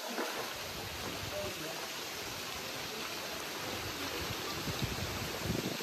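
Steady, even hiss of outdoor ambience, with no single sound standing out.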